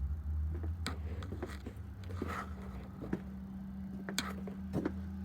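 A few scattered clicks and knocks, as of objects being handled, over a steady low hum.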